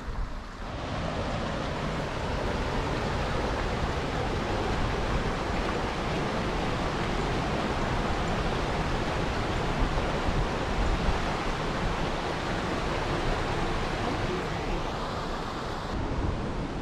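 Steady rushing water of a stream or waterfall, an even hiss that cuts in abruptly about a second in and shifts in tone near the end.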